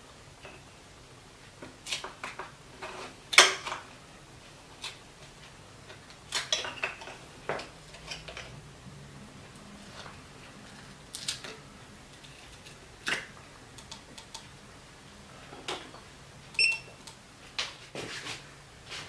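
Irregular clicks, taps and knocks of hands and tools working on an electric scooter's handlebar, plastic and metal parts knocking against each other, a few sharper clicks among them.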